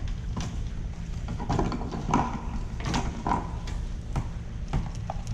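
Freshly caught saltwater catfish being handled against a kayak's side: scattered clicks and knocks on the hull, with a few short croaks about two and three seconds in. A steady low wind rumble on the microphone runs underneath.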